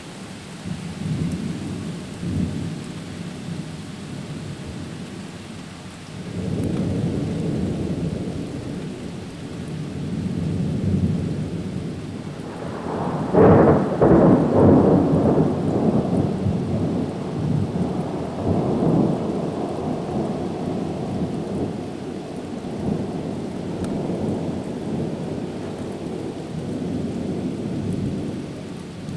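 Thunder rumbling again and again over steady rain. The loudest, sharpest peal comes about halfway through and rolls on for many seconds.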